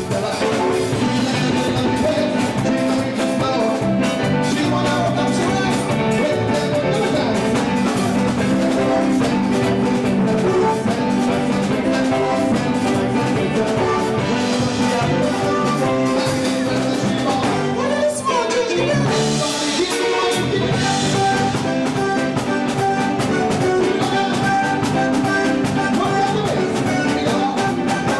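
Upbeat music with a steady drum beat and sustained melodic notes; the bass drops out briefly about two-thirds of the way through.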